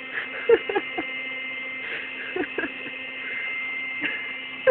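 Electric air pump running steadily as it inflates an airbed, a constant hum with a higher whine, with a few short sharp sounds over it about half a second in, around two and a half seconds and near the end.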